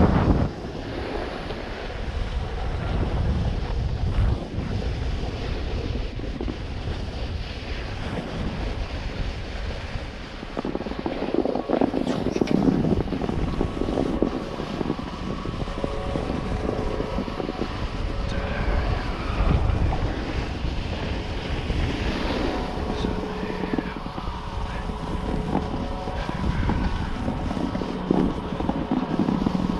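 Wind buffeting the camera microphone while riding a snowboard downhill, with the board scraping over groomed snow; a steady rumbling rush that swells in gusts.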